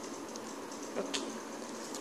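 Felt-tip marker making short scratchy strokes on paper over a steady low hum, with a louder tap and scratch about a second in.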